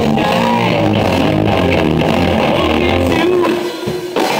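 Live rock band playing loudly on electric guitars, bass and drums. Near the end the sound drops out briefly, then the full band comes back in on a sharp hit.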